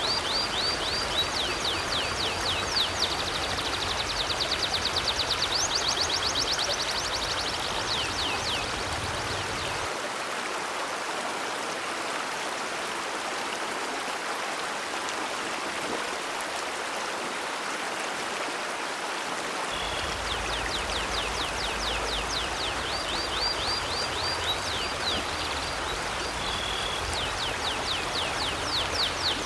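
River water flowing steadily. Over it comes a bird's high, rapid chirping trill, in two long runs: one in the first nine seconds and one from about twenty seconds in.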